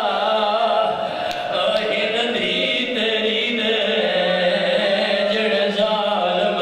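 A man chanting a masaib lament into a microphone in a long, drawn-out, wavering melodic voice.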